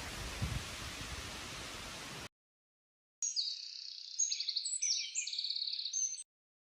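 Waterfall rushing as a steady hiss, cut off abruptly after about two seconds; after a short silence a songbird sings a fast run of high chirps for about three seconds.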